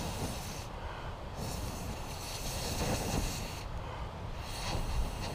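Long breaths blown through an extendable pocket bellows tube into the base of a small kindling fire: a rushing hiss lasting a couple of seconds per blow, with short breaks to draw breath about a second in and about four seconds in. Each blow feeds the fire extra oxygen and makes the flames flare.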